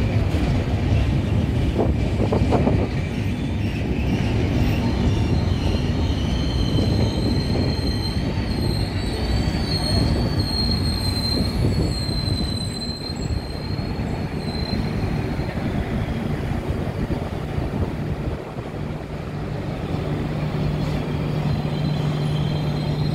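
Indian Railways LHB passenger coaches rolling slowly past on arrival, a continuous rumble of wheels on rail. From about six to fifteen seconds in a high, wavering wheel squeal rides over it. Near the end a steady low hum comes in.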